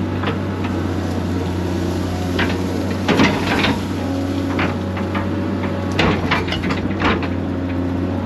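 Excavator engine running steadily while the bucket breaks out an old stump, with bursts of cracking and crunching wood and roots about three seconds in and again around six to seven seconds in.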